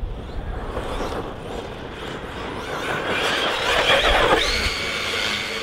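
ARRMA Kraton 6S RC car running on dirt, with rough tyre and drivetrain noise. About three seconds in, a high electric whine from the brushless motor swells and settles into a steady high tone near the end.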